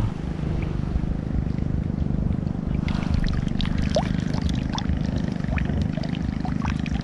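Steady low rumble of wind on the microphone, with water trickling and lapping, and light scattered clicks from about three seconds in.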